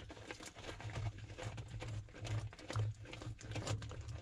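Small irregular clicks and knocks of hands working a retaining band loose on a sewer ejector pump's float cords, with low handling thumps.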